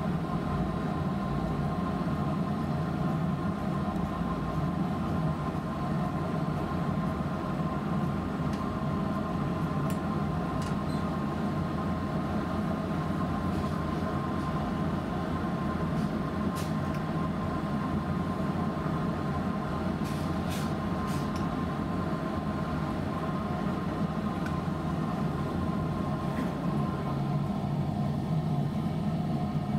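Steady machine hum with a low rumble that holds even throughout, with a few faint light clicks in the middle stretch.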